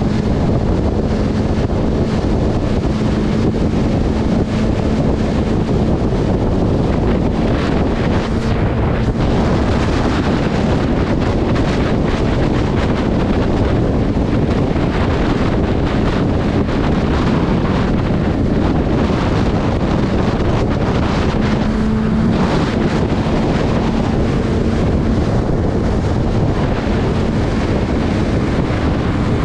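Wind rushing over the camera microphone of a moving motorcycle at road speed, steady throughout, with the bike's engine humming evenly underneath.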